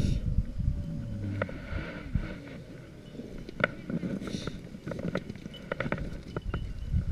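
Footsteps through dry grass and brush, with bare branches scraping and twigs snapping in a series of sharp clicks in the second half, over a low rumble of movement against the microphone.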